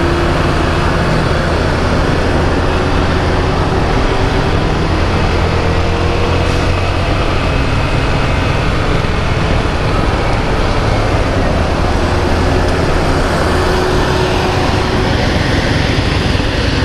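Steady wind and road noise on the move, with a Suzuki Gixxer SF's 155 cc single-cylinder engine running underneath.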